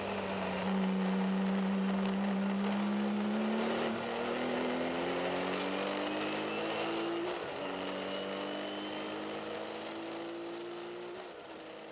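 Porsche 911 TurboCup's 650 hp turbocharged flat-six, heard from inside the cockpit, accelerating with its pitch climbing steadily. It upshifts about seven seconds in and again near the end.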